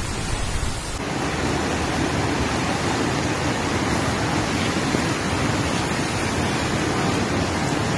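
Steady, loud rush of heavy water, with a shift in its tone about a second in.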